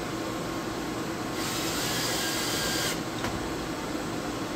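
Cordless drill spinning briefly for about a second and a half, hand-chamfering the edge of a hole in a metal part before tapping, with a faintly rising whir. A steady machine-shop hum runs underneath, and a single light click follows soon after the drill stops.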